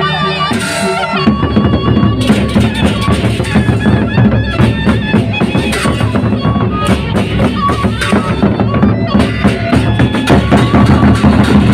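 Gendang beleq ensemble playing. A sustained pitched melody line is heard at first, then about a second in the big drums and clashing cymbals come in densely under it.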